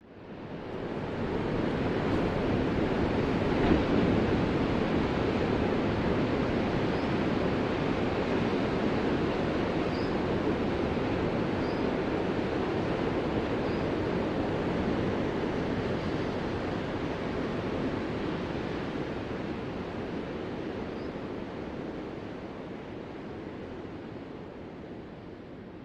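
Ocean surf: a steady wash of waves that swells up from silence in the first couple of seconds, then slowly fades toward the end.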